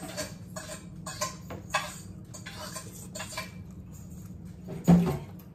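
Forks and plates clinking and scraping as people eat, a scatter of short, light clicks, with one louder bump about five seconds in.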